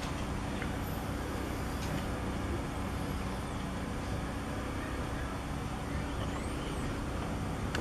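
Steady low background rumble with no distinct events; the slow pour of oil into the jack gives no separate sound of its own.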